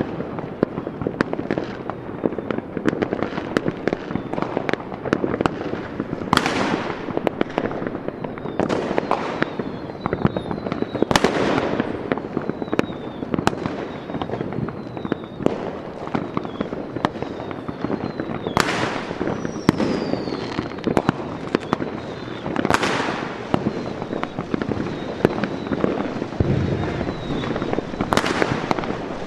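Fireworks: a dense, unbroken crackle of firecrackers and small bangs, with about five louder bursts that hiss away, and a few faint whistles.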